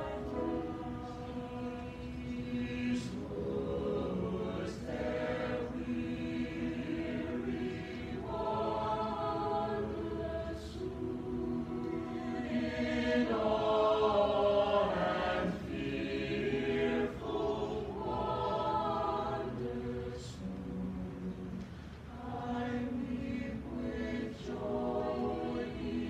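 Mixed high school choir singing a slow choral piece in parts, with piano accompaniment; the voices swell to their loudest about halfway through, then ease back.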